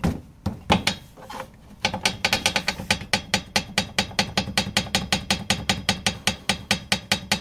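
Toyota Land Cruiser Prado 150 (2012) knocking with a metallic rattle over small road bumps: a few separate knocks, then from about two seconds in a fast, even run of sharp clicks over a steady low rumble. The owner traces the knock to a loosened riveted mount for the front bumper and fog lamp.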